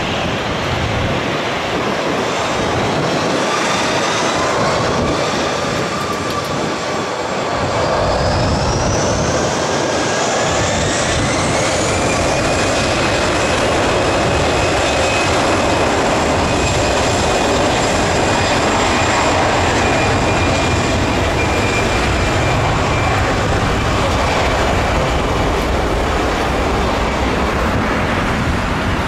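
Airbus A320's twin jet engines spooling up for takeoff. A whine climbs in pitch from about eight seconds in, then holds steady over the loud rushing of the engines as the airliner rolls down the runway.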